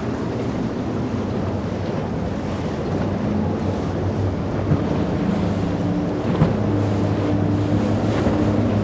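Boat engines running steadily amid waves and surf, with wind buffeting the microphone. A couple of brief thumps break through about five and six and a half seconds in.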